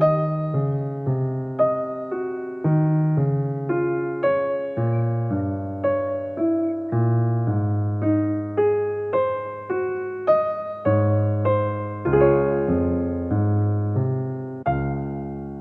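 Soft background music: a gentle electric piano playing a slow, even run of notes, each one fading before the next.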